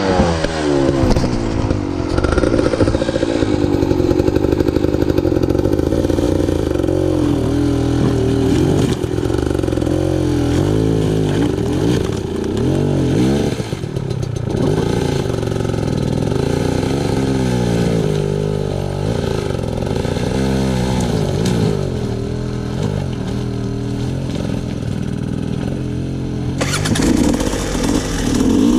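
Dirt bike engine running, its pitch rising and falling again and again as the throttle is worked on and off. A harsher, louder rev comes in near the end.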